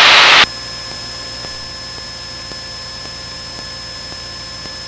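Cessna 172N cockpit audio: a loud rush of open-microphone noise cuts off about half a second in. What is left is the steady drone of the four-cylinder Lycoming engine and airflow, with faint steady tones over it.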